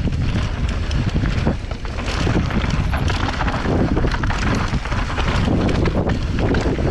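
A mountain bike descending a rough dirt trail at speed: tyres rumbling over the ground and the bike rattling with many small knocks, under steady wind noise on the camera's microphone.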